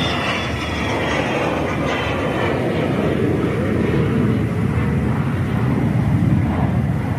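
Twin-engine business jet's turbofan engines at takeoff thrust as it climbs away: a steady jet roar with a high whine slowly falling in pitch, the low rumble growing a little louder toward the end.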